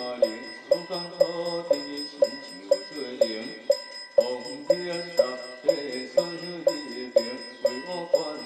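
A wooden fish (muyu) struck with a mallet at a steady beat of about two strokes a second, keeping time for group chanting of a Taoist scripture.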